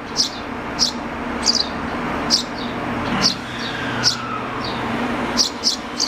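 Short, high bird-like chirps repeating about once a second over the steady hum of a BEC819 DENCHA battery-electric train standing at the platform.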